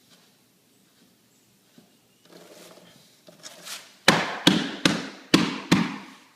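A laminate floor plank being handled, then knocked into place with five sharp knocks about half a second apart.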